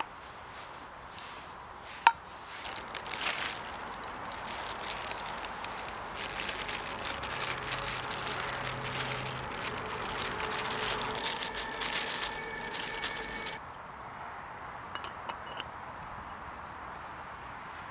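Plastic bag crinkling and dried vegetables rattling as they are poured into a steel pot of broth, for about ten seconds, stopping suddenly. A sharp knock comes about two seconds in, and a few light metal clicks near the end as the pot's lid is fitted.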